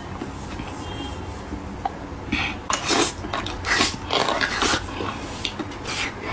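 Slurping soft pork brain and spicy broth off a spoon: a quiet first two seconds, then a run of short, wet slurps in the second half.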